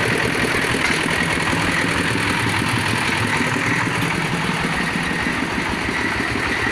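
Engine of a bore-well drilling machine running steadily at an even speed with a fast, regular beat.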